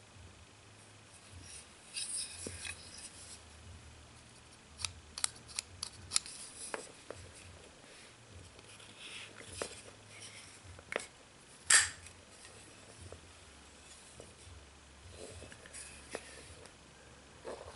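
Cold Steel Pocket Bushman folding knife with a brushed-steel handle being handled: light metal clicks and rubbing. About twelve seconds in comes one loud, sharp snap, the blade swinging open and its back-spring lock engaging.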